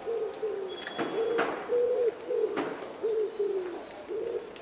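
Pigeon cooing in a quick run of short, low notes, with a few high chirps from another small bird and a couple of sharp clicks.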